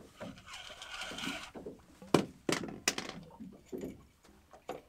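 Handling noise on a fishing boat: a hiss of about a second, then a few sharp knocks and thunks, the loudest about two seconds in.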